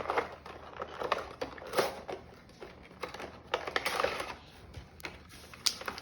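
Cardboard and plastic packaging of a Funko Pop box being handled and opened by hand: irregular clicks, scrapes and rustles.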